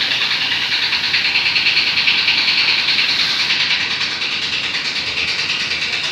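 Motor boat running on the river: a steady rushing hiss with a fast, even throb from its engine.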